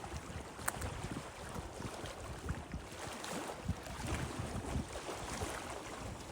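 Wind buffeting the microphone in uneven low gusts over a steady outdoor hiss, with one sharp click less than a second in.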